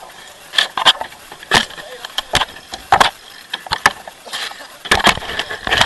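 Irregular sharp knocks and rattles of a sailboat's forward deck hatch and its metal fittings as gloved hands work in and around the hatch opening.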